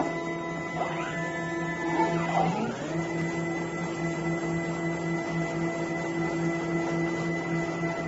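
Wire harness taping machine running, its motor-driven tape head spinning steadily to wrap tape around a cable bundle. It gives a steady whine whose pitch shifts briefly about one second in and steps up near three seconds in.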